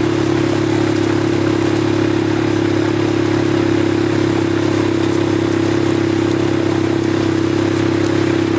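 ATV engine running at a steady speed while riding, a constant drone with no change in revs.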